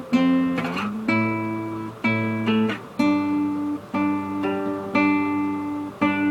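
Guitar with its low string tuned down to C, two strings at a time plucked together about once a second. There is a short slide up to a new chord shape about a second in.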